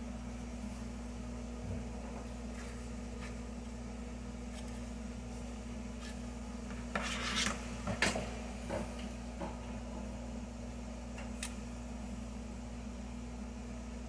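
Metal spoon scraping and smoothing thick mashed sweet potato filling in a foil pie tin, with quiet strokes and a few louder scrapes about seven to eight seconds in, over a steady low hum.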